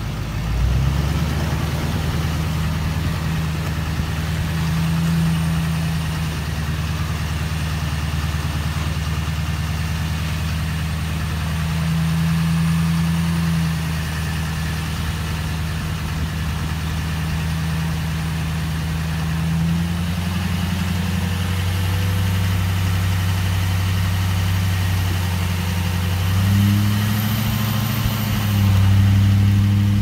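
Pickup truck engine running steadily as the truck drives slowly along a muddy dirt road, its pitch rising and getting louder near the end.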